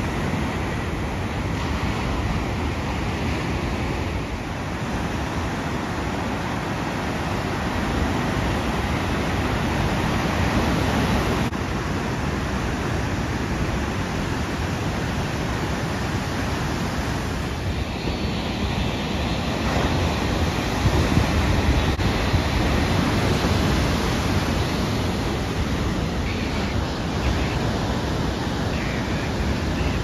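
Ocean surf breaking and rushing as a steady noise, mixed with wind, swelling a little about two-thirds of the way through.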